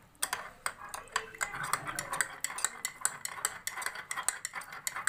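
Steel spoon stirring custard powder into cold milk in a glass tumbler, clinking rapidly and irregularly against the glass.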